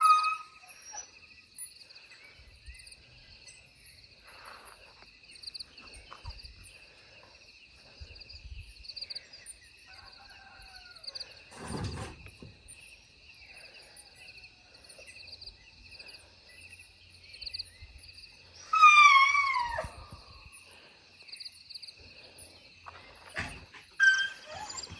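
Morning insect chorus: two steady, shrill pulsing trills, with scattered short bird chirps above them. There is a thump about halfway through, and about three-quarters of the way in a loud animal call falls in pitch over about a second.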